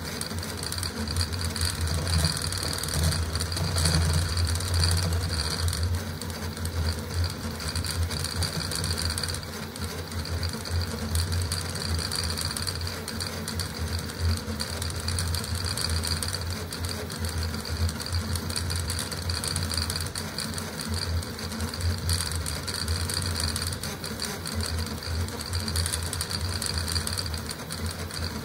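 Custom CoreXY 3D printer printing at high speed (600 mm/s, 80k acceleration): the stepper motors and belts buzz and chatter through constant rapid direction changes, over a steady high hiss.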